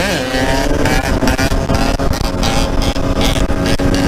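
Motorcycle engine running at a fairly steady speed while riding, a held, even-pitched note over rough wind buffeting on the helmet camera's microphone.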